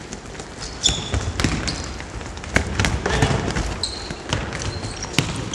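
Futsal ball being kicked and passed on a wooden sports hall floor: several sharp knocks, the loudest about two and a half seconds and five seconds in, with short high squeaks of players' indoor shoes and the echo of the hall.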